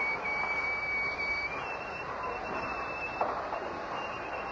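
Sounds around a steam-hauled passenger train at a station, on an old recording: a hiss of background noise with a thin, steady high tone that steps up in pitch about a second and a half in, and a single clank about three seconds in.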